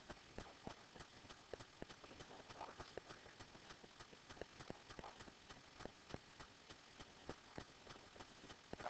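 Faint, irregular clicks and taps of a pen tip striking and moving on a SMART Board interactive whiteboard as an equation is handwritten, a few per second.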